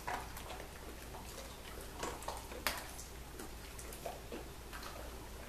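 A dog crunching dry kibble: irregular sharp crunches and clicks, a few seconds apart, over a low steady hum.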